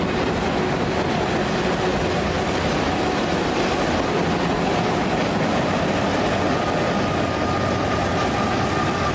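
Freight train cars rolling steadily past on a steel truss bridge: a continuous rumble of wheels on rail, with a faint steady whine growing over the second half.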